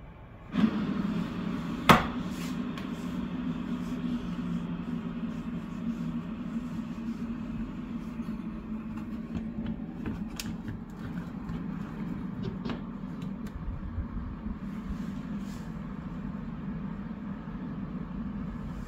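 Prima Klima Whisper blower inline duct fan running on its lowest setting: a steady low hum with a rush of moving air. It comes up suddenly about half a second in. A sharp knock comes about two seconds in, with a few light ticks after.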